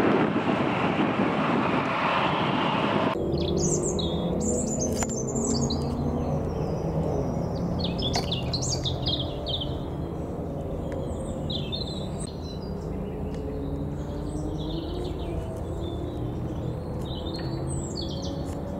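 A loud rushing noise that cuts off abruptly about three seconds in. After it, small birds chirp in short high bursts over a low steady hum.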